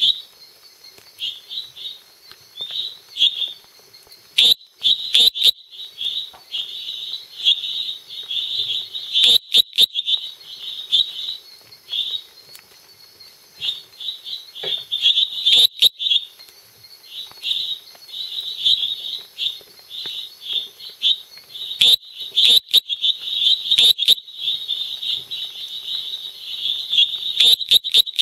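Male Dendropsophus minutus tree frog calling: clusters of short, rapid, high-pitched notes, with a louder, sharper note every few seconds.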